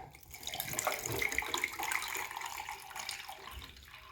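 Water poured into the reservoir of a Hamilton Beach Scoop single-serve coffee maker, a steady splashing trickle that trails off near the end.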